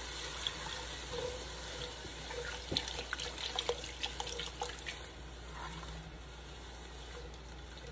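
Chicken broth pouring from a carton into a pot of sautéed vegetables and roux, with a silicone spatula stirring and scraping the pot. Small scrapes and clicks come thickest in the middle, and the sound grows quieter for the last couple of seconds.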